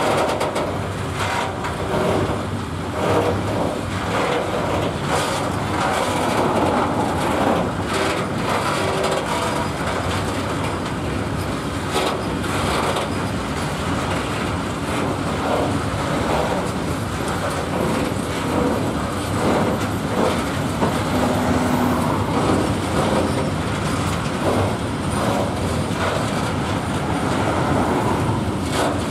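Freight train of grain hopper wagons rolling past at low speed: a steady rumble of steel wheels on the rails with frequent irregular clicks and knocks.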